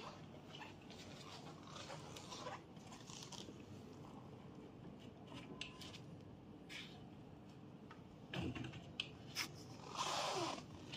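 Faint handling noise of a bed guard rail being fitted: scattered light clicks and taps from its plastic joints and metal bracket, a louder knock a little past eight seconds, and a scraping rustle near the end.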